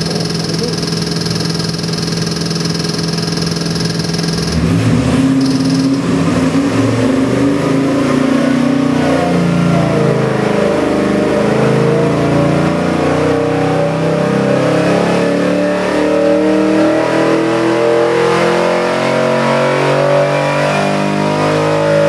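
Chevrolet LS3 416-cubic-inch stroker V8 on an engine dyno, idling at about 800 rpm. From about four and a half seconds in it pulls under load, its revs climbing steadily to over 6,000 rpm near the end: a full-throttle dyno pull making close to 590 horsepower.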